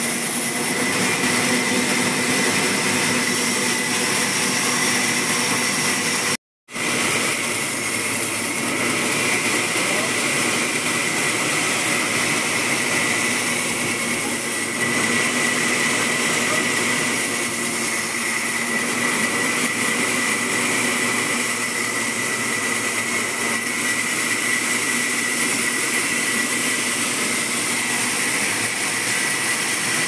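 Large vertical band saw running and cutting through a big log: a steady, loud whine and hiss, with one brief drop to silence about six seconds in.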